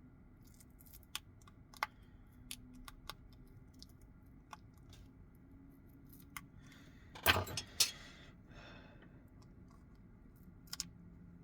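Small tools and loose parts clicking and tapping while a smartphone is taken apart, with a louder short clatter of small hard parts about seven seconds in.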